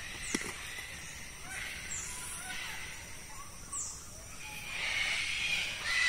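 Sulphur-crested cockatoos screeching, a flock giving raspy calls that grow louder about halfway through. A small bird gives three short, high, falling notes.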